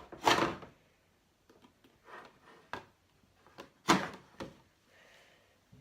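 Cardboard toy box being pried and pulled at while someone struggles to open it: short scraping and rustling sounds with a light knock, the loudest just after the start and about four seconds in.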